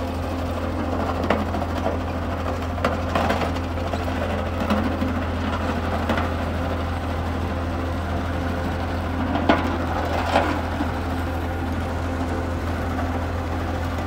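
Single-drum road roller's diesel engine running steadily with a low hum as the smooth steel drum rolls over crushed stone, with a few sharp cracks of stones crunching under the drum.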